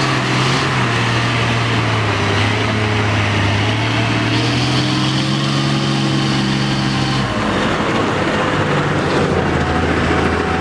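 Heavy diesel engines labouring under load as a tanker truck crawls through deep mud with a wheel loader pushing it from behind. The steady engine note drops and changes about seven seconds in.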